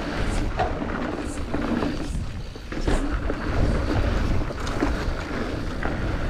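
Wind rushing over the microphone with tyre noise from a Deviate Highlander trail bike rolling over a dirt trail, and a few short knocks and rattles from the bike.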